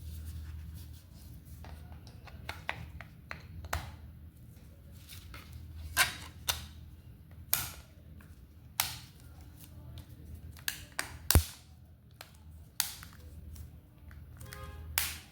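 Irregular clicks and taps, about a dozen sharp ones, from a phone and its box being handled during an unboxing, over a steady low hum. A short pitched sound comes near the end.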